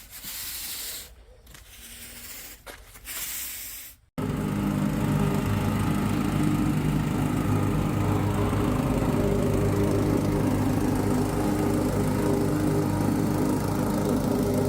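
Broom strokes sweeping sand across pavers, heard as short hissing swishes with gaps. After about four seconds they give way abruptly to the steady running of a Weber MT VPR 450 paver compactor's small petrol engine, vibrating as it compacts the joint sand.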